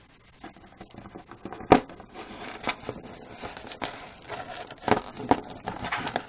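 Small plastic clicks and scrapes as a GI Joe action figure's parts are handled and worked with a thin metal hook tool, to pull its rubber band over a peg. There are about six sharp clicks with a light scratchy rustle between them; the loudest click comes a little under two seconds in.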